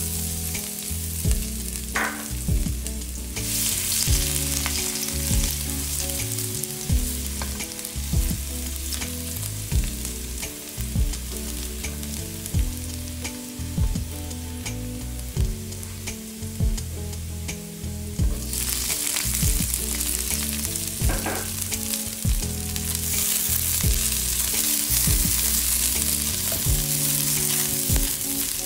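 Chopped garlic, and then sliced onion, frying in hot oil in a stainless steel wok and being stirred with a spatula: a steady sizzle that grows louder about three seconds in.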